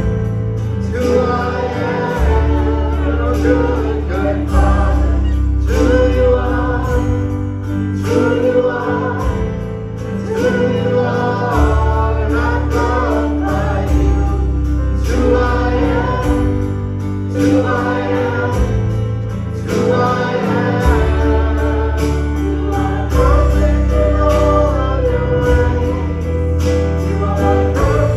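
Worship song with singing over a band: held bass notes that change every couple of seconds, a steady beat, and a sung melody on top.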